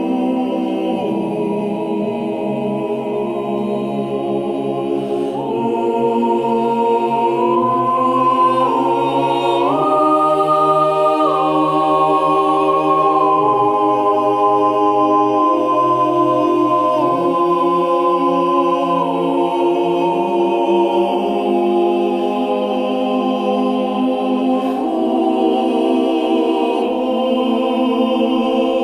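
Slow choral music: voices holding sustained chords that shift to a new chord every few seconds, with no chime strikes.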